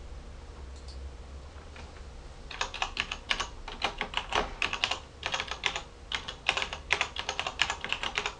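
Typing on a computer keyboard: a quick, uneven run of key clicks that starts about two and a half seconds in, after a couple of faint clicks.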